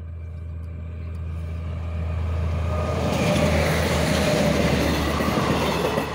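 Passenger train of České dráhy coaches approaching and passing close by, its wheel and rail noise growing louder to a peak about three to five seconds in, then easing, over a steady low hum.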